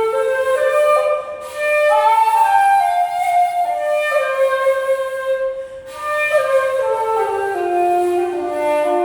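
A shakuhachi, the Japanese end-blown bamboo flute, playing a slow melody of held notes that step up and down, with two short breaks, about a second and a half in and near six seconds.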